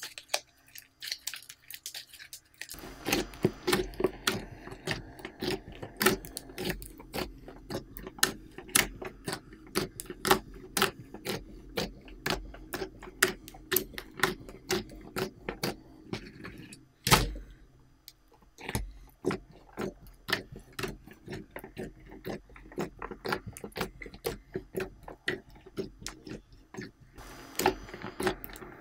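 Large mass of glittery mixed slime being kneaded, squeezed and pressed flat by hand, giving a dense run of quick wet clicks and crackles, with one louder thump a little past the middle.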